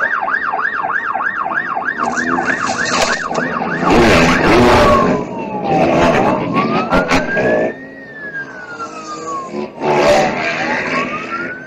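Police car siren on a fast yelp, about three cycles a second. About four seconds in it switches to a slow wail that falls and rises over a couple of seconds each way, then goes back to the yelp at the end. A burst of loud rushing noise comes in about four seconds in.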